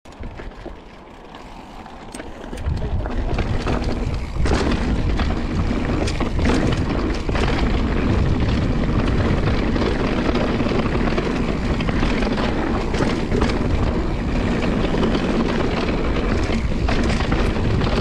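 Whyte G-170 mountain bike riding down a dirt trail: rushing wind on the action camera's microphone mixed with tyre roll and rattling knocks from the bike over bumps. Fairly quiet with a few clicks for the first couple of seconds, then the noise builds as the bike picks up speed and stays loud.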